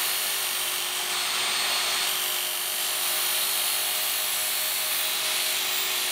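Work Sharp electric belt sharpener running steadily, its motor hum under the high hiss of the abrasive belt grinding the flat side of a kitchen knife's blade.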